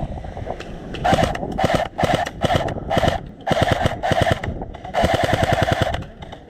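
Airsoft electric rifle, a CYMA M14, firing a string of short rapid-fire bursts, about eight in all, its gearbox cycling with a mechanical buzz under the clicking shots.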